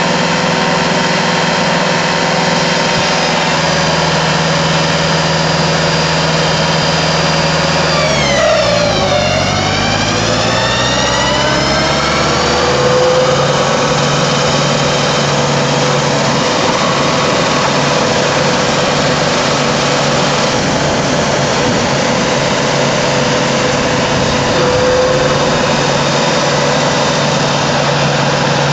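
Compact tractor driving a TFVJ forest mulcher with swinging forged-steel hammers: engine and spinning rotor running with a steady, many-toned whine. About eight seconds in the pitch drops sharply and climbs back up over a few seconds, then holds steady again.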